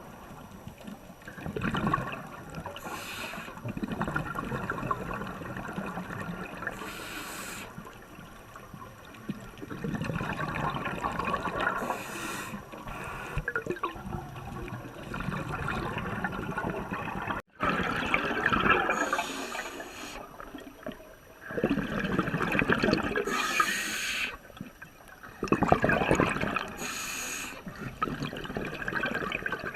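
Underwater bubbling and gurgling from a scuba diver's breathing, coming in noisy bursts every few seconds. The sound breaks off for an instant just past halfway.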